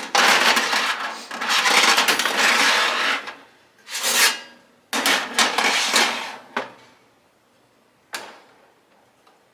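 Metal oven trays and racks being handled against an air fryer toaster oven, scraping and rattling: a long scrape at the start, shorter scrapes around the middle, and a single sharp clack near the end.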